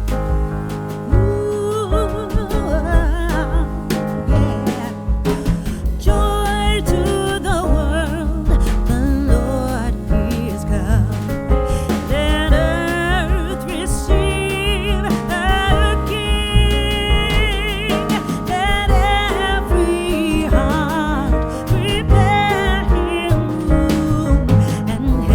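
Background music: a song with a singing voice over a steady bass and beat.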